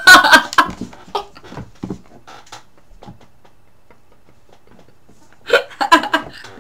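A girl laughing hard: a loud run of short, breathy laughs at the start, then another run about five and a half seconds in.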